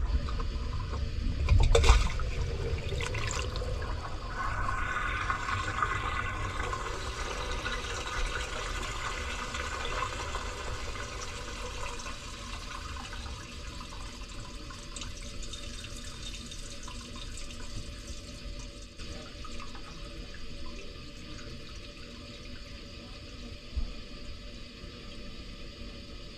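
Waste water rushing through an opened cast-iron sewer pipe, carrying toilet paper along: the drain flowing freely once the blockage is cleared. It is loudest at first, with a couple of knocks about two seconds in, then slowly eases off.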